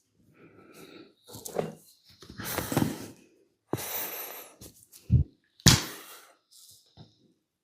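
Hand massage sounds: a run of short rubbing and brushing noises on skin and hair, then a low thud and a sharp snap about two-thirds of the way through, the loudest sound, with a small click near the end.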